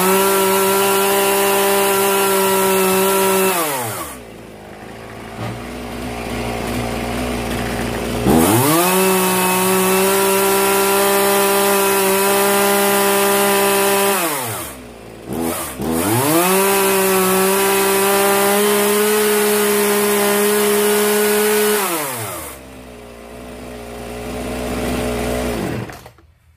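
Zenoah G3800 two-stroke chainsaw running on the bench, revved to full throttle three times, each held for several seconds and dropping back to idle between, then switched off near the end. It now starts and holds revs after a carburettor diaphragm replacement and readjustment of the L, H and T screws.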